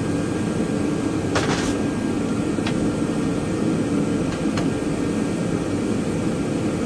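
Steady whirring hum of a running fan or shop machine, with a short hiss about a second and a half in and a few light clicks.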